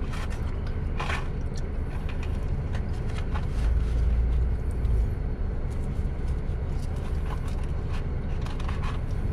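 Steady low rumble inside a car cabin, swelling briefly about four seconds in, with scattered small clicks and scrapes of eating from a food container.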